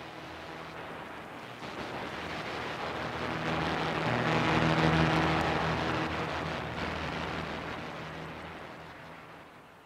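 Generative modular-synthesizer drone: a wash of hissing noise over a few steady low tones swells to a peak about halfway through, then fades out near the end.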